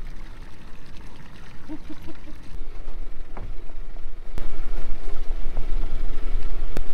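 Low rumble with water noise around a drifting fishing boat, growing louder about halfway through, with two sharp clicks, the second near the end.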